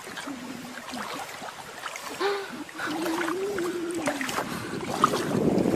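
Shallow water splashing as a pug held up by its harness paddles its legs at the surface, growing louder near the end. In the middle there is a long, wavering vocal sound.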